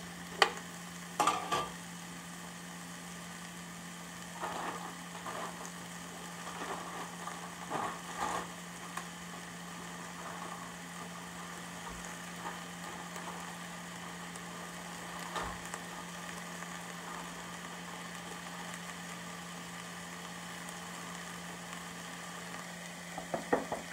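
Diced zucchini, yellow squash and onions sizzling steadily in butter in a stainless steel pot on high heat. A metal spoon clinks against the pot a couple of times in the first two seconds, with a few softer knocks a few seconds later, over a steady low hum.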